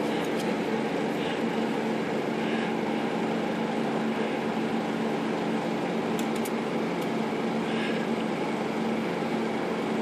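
Steady mechanical hum of the workshop, like a fan or air conditioner, with a few faint metallic clicks about six to seven seconds in.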